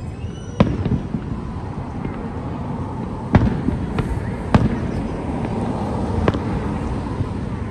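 Aerial firework shells bursting overhead: about five sharp bangs spread over several seconds, the strongest in the middle, over a steady background rumble.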